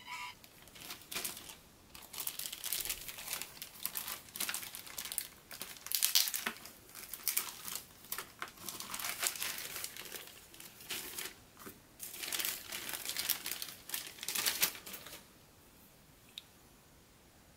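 Plastic packaging crinkling and rustling as it is handled, in uneven spells that stop about fifteen seconds in.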